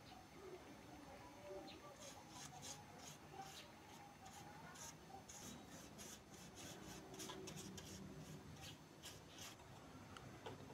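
Faint brushing: a bristle paintbrush stroking paint onto popsicle-stick wood, in short runs of strokes.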